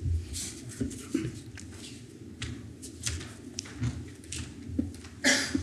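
Handling noise at a lectern microphone: scattered light taps, clicks and shuffling over a steady low hum, with a louder short rustle near the end.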